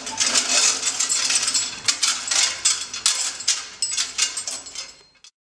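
Steel chain and a welded steel-frame mockup clanking and rattling in a drop test: a rapid series of sharp metallic clanks as the frame falls from the crane hook and the chain lands, thinning out until the sound cuts off about five seconds in.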